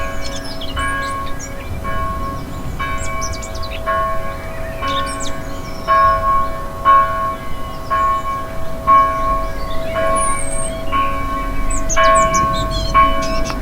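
Church bell ringing, struck about once a second, each stroke ringing on into the next. Small birds chirp and twitter over it.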